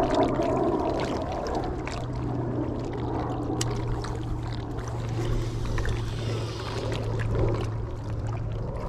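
Steady wind and water noise from small waves on a rocky lake shore, under a low steady hum.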